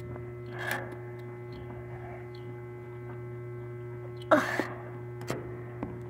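Steady low electrical hum, with faint brief rustles about a second in and again past four seconds.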